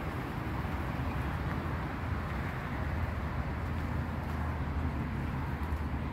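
Steady outdoor background noise: a constant low rumble under a soft hiss, with no distinct events.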